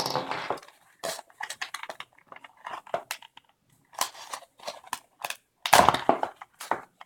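Box packaging and accessories being handled: a string of short, irregular rustling and crinkling noises as the power adapter and USB cable are taken out, loudest about six seconds in.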